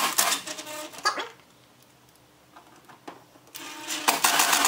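Rapid clicking and rattling of small screws and plastic parts as speaker-pod mounting screws are set in, in two dense bursts with a quiet gap between them.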